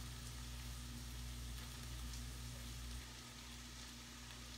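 Cauliflower-rice mixture sizzling as it fries in a pan, over a steady low hum that drops away about three seconds in.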